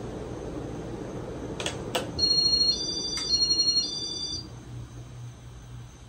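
Casablanca Spirit of Saturn ceiling fan running with a steady rush of air. Two sharp clicks come before 2 seconds in, then about two seconds of high electronic beeps alternating between two pitches. Afterwards the air rush fades and a low hum is left.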